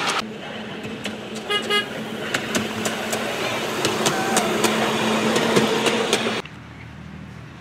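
Miniature railway train running, with a steady low hum and many sharp, irregular clicks, and a brief run of short high-pitched pulses about a second and a half in. The sound cuts off abruptly about six seconds in, leaving a quieter background.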